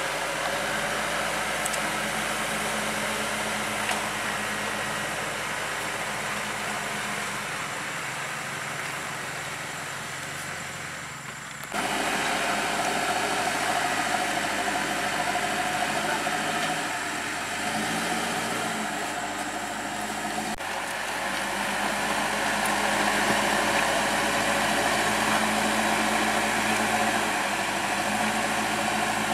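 A motor vehicle engine running steadily, with a sudden jump in level about twelve seconds in.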